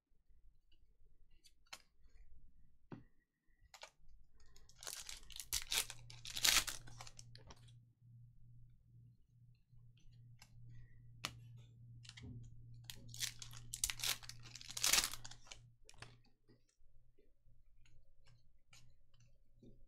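Trading-card pack wrappers being torn open and crinkled, in two bursts about eight seconds apart, with scattered light clicks in between.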